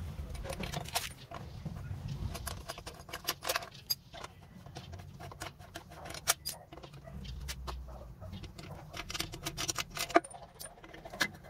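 Metal hand tools clinking and clicking against a GY6 scooter engine as the bolts of its CVT side cover are worked loose with a socket wrench and a T-handle. The clicks come irregularly, with a few sharper knocks such as one about ten seconds in.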